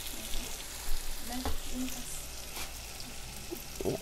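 Beef chunks browning in hot oil with garlic and parsley in a cast-iron Dutch oven, a steady sizzle. A few knocks of the wooden spoon against the pot come through as it is stirred.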